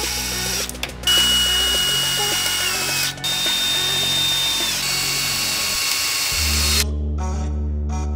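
DeWalt 20V cordless drill driving 3-inch wood screws into 2x4 pine boards: two long runs of loud motor whine and screw grind, broken briefly about three seconds in, with the whine stepping in pitch as the load changes. The drill stops about seven seconds in.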